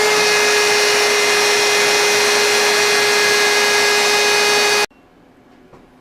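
CNC router spindle running at speed: a loud, steady high whine over a rushing noise, which stops abruptly about five seconds in.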